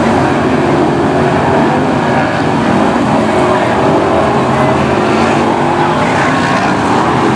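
Several BriSCA F1 stock cars racing, their V8 engines running loud and steady together as the pack laps the oval.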